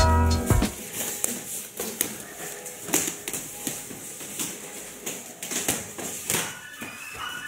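Music cuts off just after the start. Then come scattered sharp hits of boxing gloves striking gloves and pads during partner pad work. Music begins to come back in near the end.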